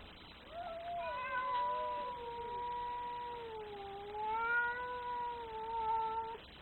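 Domestic cat giving one long, drawn-out yowl, the angry caterwaul of an upset cat. Its pitch dips in the middle and rises again before it cuts off suddenly near the end.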